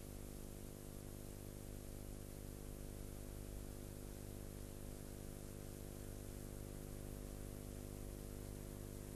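Low steady electrical hum with a faint hiss, the bare noise of the recording with no programme sound.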